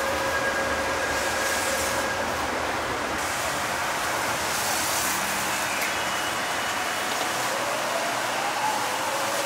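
Steady, loud background noise with no speech, with a faint whine rising in pitch near the end.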